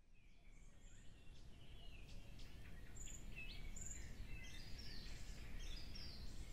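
Small birds chirping and twittering over a low outdoor rumble of ambience, fading in from silence and growing gradually louder.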